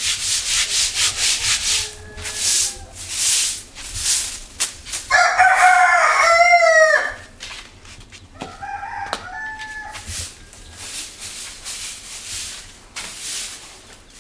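A broom sweeping in quick scraping strokes, about five a second, slowing after two seconds. A rooster crows loudly about five seconds in, with a shorter call from the fowl a few seconds later, and fainter sweeping strokes follow.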